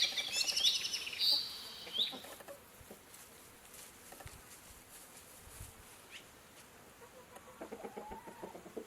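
Birds calling: a run of quick, repeated high chirps for the first two seconds, then a quieter stretch with a single short call, and a lower, rapidly pulsing call setting in near the end.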